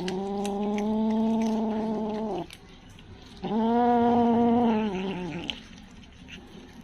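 A kitten giving two long, drawn-out yowls, each about two seconds and held at a steady pitch, with a short pause between them.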